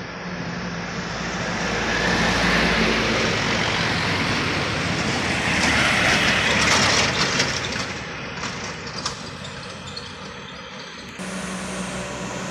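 Light trucks' diesel engines labouring up a steep bend, growing louder as a white box truck passes close about six seconds in, then fading as it moves away. The sound changes suddenly near the end.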